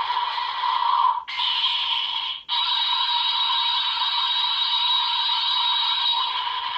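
An electronic transformation-toy sound effect for Ultraman Z medals: a steady hissing noise from a small speaker, cut off briefly twice in the first few seconds and then running on.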